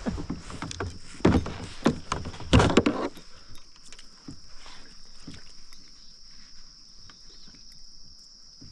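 A series of loud splashes and knocks in the first three seconds as a hooked smallmouth bass thrashes at the surface beside the kayak, then small scattered ticks. A steady high trill of crickets runs underneath throughout.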